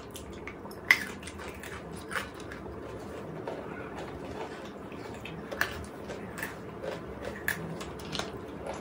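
People eating chocolates: scattered small clicks and crinkles of biting, chewing and handling wrappers over a soft steady hiss.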